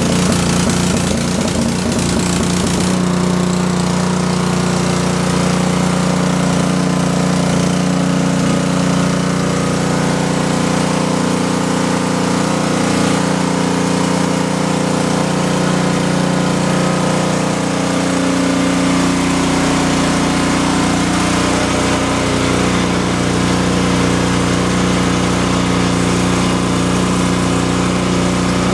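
Husqvarna 1830HV snow blower's 414 cc single-cylinder engine running loud just after a cold electric start on full choke. It runs rough for the first three seconds or so, then settles into an even, steady run.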